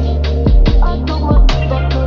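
Electronic background music with heavy sustained bass that slides down in pitch, and a steady sharp beat.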